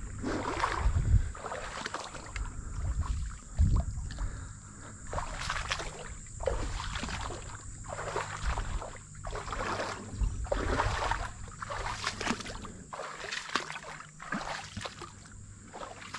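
Footsteps wading through shallow tidal water, a slosh and splash about every half second to second.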